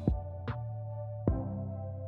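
Instrumental background music: a beat with sustained bass and synth notes and a drum hit roughly every 0.8 seconds.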